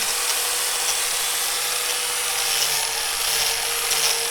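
Power cutting machine running steadily, a constant motor whine under an even hiss of cutting.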